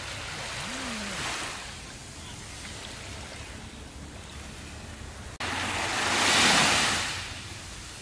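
Small ocean waves lapping and washing up a sandy beach: a gentle swash about a second in, then a louder wave rushing up the sand near the end. The sound breaks off abruptly for an instant just before the louder wave.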